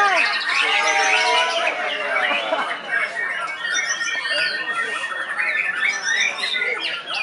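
Several caged white-rumped shamas singing at once in competition: a dense, unbroken tangle of overlapping whistles, glides and fast trills.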